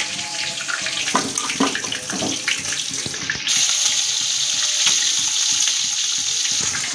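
Chicken sizzling as it fries in hot oil in a kadhai, a steady hiss that suddenly gets louder and brighter about halfway through.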